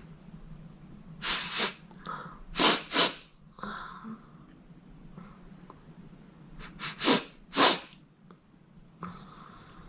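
A girl sneezing repeatedly in quick pairs: two sneezes just over a second in, a louder pair near three seconds, and two or three more around seven seconds, with short breaths drawn in between.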